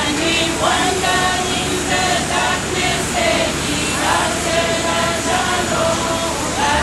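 Voices singing a slow melody with long held notes over a steady background hum.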